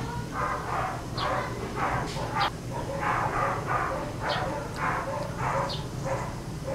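A dog barking over and over in the background, about two barks a second.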